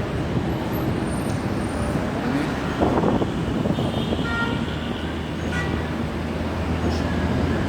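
Steady road-traffic noise from slow, congested cars, with a few short high tones about three to four seconds in.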